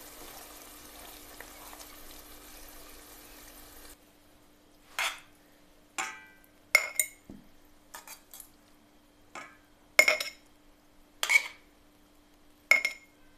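Green peppers simmering in an oily vinegar brine in a steel pot, a steady sizzling hiss, cut off abruptly about four seconds in. Then about eight sharp, ringing clinks, irregularly spaced, as a metal utensil knocks against the steel pot and a glass jar while the peppers are packed.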